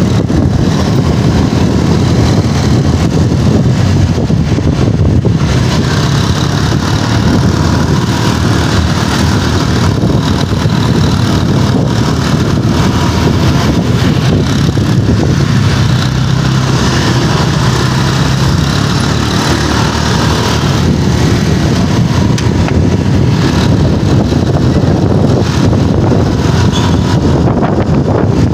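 Steady, loud rush of wind and road noise with a motorcycle engine running underneath, heard from a moving motorbike.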